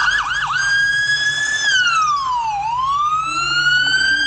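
Police car siren: two quick downward chirps, then a held high tone that slowly falls and climbs back up in one long wail.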